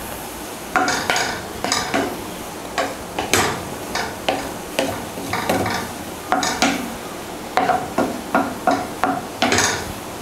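Wooden spatula stirring and scraping banana flower stir-fry in a non-stick pan, a run of short scrapes and taps over a steady sizzle from the frying.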